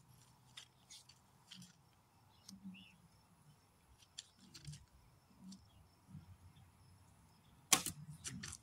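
A 1972 Bear Kodiak Hunter recurve bow shot once near the end: one sharp snap of the string on release, followed within half a second by a few quieter knocks.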